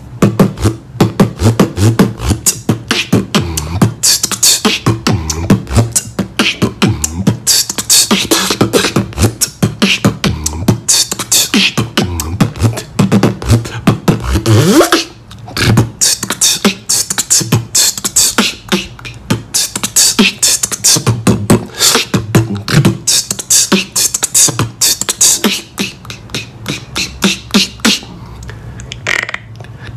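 Solo human beatboxing: a fast, continuous old-school routine of rapid mouth-made percussive strikes and hissing hi-hat sounds over low hummed bass tones.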